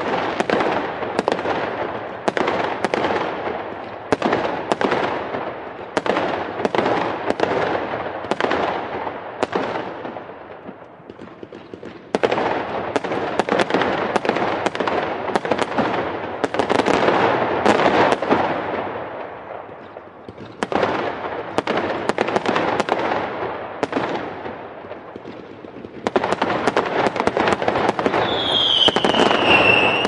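Fireworks going off: dense volleys of sharp bangs and crackling, easing off twice and then starting up again abruptly. Near the end a whistle falls in pitch over the bangs.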